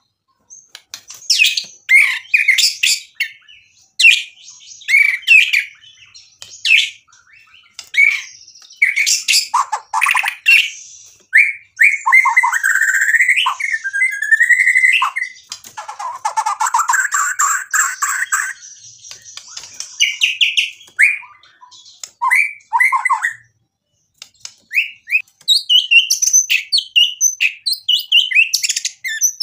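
Male white-rumped shama (murai batu) singing a long, varied song of loud whistled phrases, quick chirps and harsh buzzy rattles, with a short break about two-thirds of the way through.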